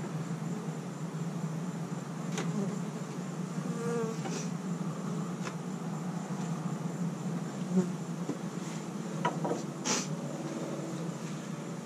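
Honeybees buzzing steadily around an opened hive, with a few light knocks as the frames are worked.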